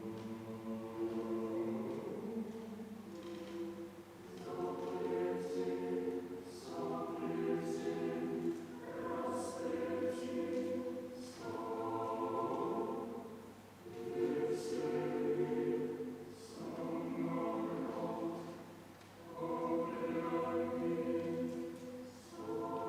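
Choir singing a Russian choral piece in phrases, with brief dips between them.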